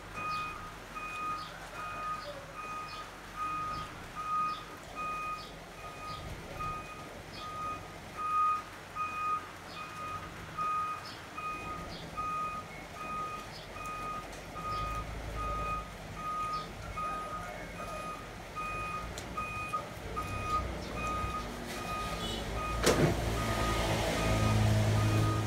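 Electronic beeping: one steady tone repeating about twice a second, with a low rumble building in the last ten seconds and a sharp knock near the end.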